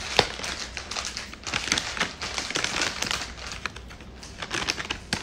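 Thin plastic wrapping crinkling and crackling as it is handled in the hands, in quick irregular rustles.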